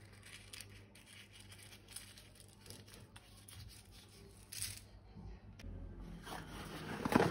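Quiet hand-handling noises of balloons and slime: a few faint clicks, a short scraping noise about four and a half seconds in, and busier handling noise building near the end.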